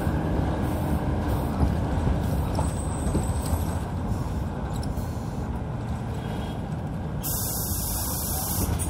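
2006 Hyundai Aero City 540 city bus running, a steady low engine and road rumble heard from inside the bus. A brief hiss of air comes near the end.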